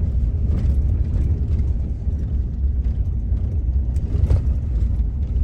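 Steady low rumble of a car driving, heard from inside the cabin, with a few faint light clicks or rattles.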